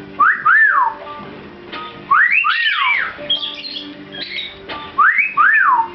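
Cockatiel whistling a short two-note phrase, a quick upward note followed by one that rises and falls, three times over, with softer high chirps in between.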